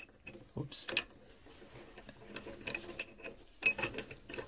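Brass union fitting being handled and threaded by hand onto a pipe fitting: scattered small metallic clicks and scrapes.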